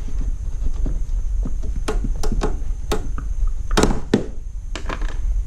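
Pliers clicking and clinking against a metal hose clamp on a coolant reservoir hose: a series of irregular sharp clicks, about eight of them, over a steady low hum.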